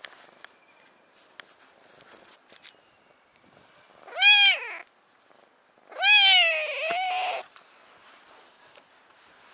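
Ginger tabby cat meowing twice close to the microphone: a short meow about four seconds in, then a longer meow that dips and rises again. Soft rustling and a few clicks come before the meows.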